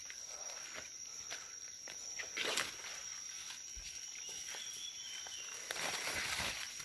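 Footsteps crunching through dry leaf litter and twigs in forest undergrowth, with irregular crackles and brushing of foliage, the rustling heaviest a little before the end.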